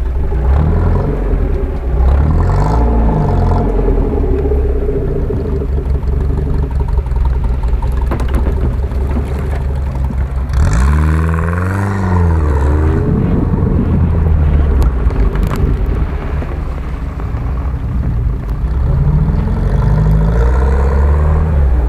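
Off-road 4x4's engine running under load, revving up and down repeatedly as it crawls over rough ground. The revs swing up and down most sharply about halfway through, and again near the end.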